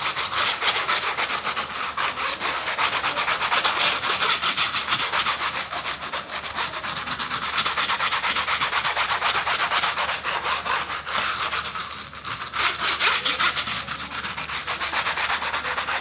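A stiff-bristled brush scrubbing foam cleaner over a laptop's outer casing in rapid back-and-forth strokes, a dense scratchy rubbing with a brief let-up about twelve seconds in.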